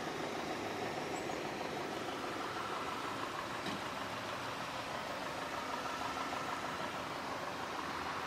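A Volkswagen Passat's engine idling steadily, with no revving.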